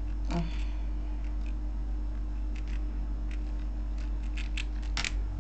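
Computer keyboard keystrokes: scattered single clicks, then a quicker run of taps about four seconds in, over a steady electrical hum.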